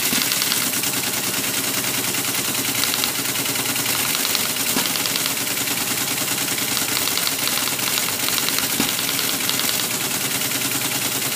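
Teletype Model 33 ASR teleprinter printing a program listing: its typing mechanism runs in a steady, rapid clatter of strikes without a break.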